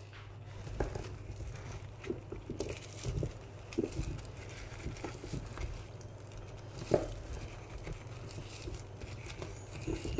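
Plastic-gloved hand tossing seasoned raw butternut squash cubes in a baking tray: irregular soft taps and knocks of the pieces against the tray, with one louder knock about seven seconds in, over a steady low hum.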